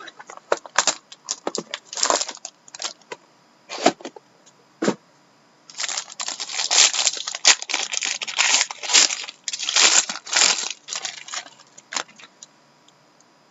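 Sealed trading-card packaging being opened and handled: scattered short clicks and crackles, then a dense stretch of crinkling and tearing wrapper from about six seconds in to about eleven seconds.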